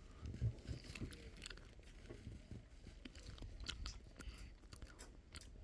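Quiet close-up eating sounds of ice cream: chewing and biting, with many small scattered mouth clicks.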